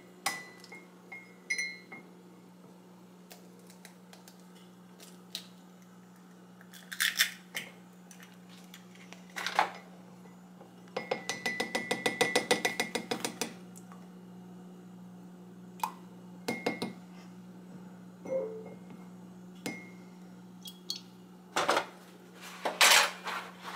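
Spoon clinking and knocking against a ceramic mug while an egg yolk is separated from the white, in scattered single knocks, with a quick run of rapid clinks lasting about two seconds near the middle.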